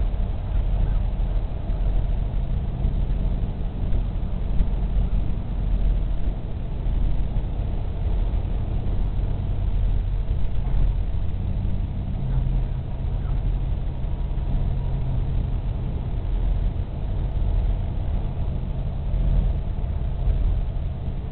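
Steady low rumble of distant road and rail traffic.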